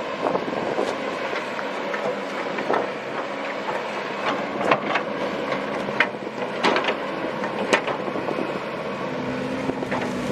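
Komatsu PC130 hydraulic excavator working: its diesel engine runs steadily, with sharp metal clanks and knocks about every second or two as the bucket scrapes and strikes rock and gravel.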